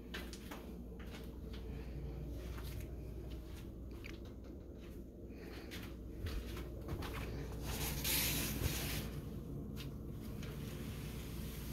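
Faint handling noise from a handheld phone camera being moved around: scattered small clicks and rustles over a steady low hum, with a brief rush of hissing noise about eight seconds in.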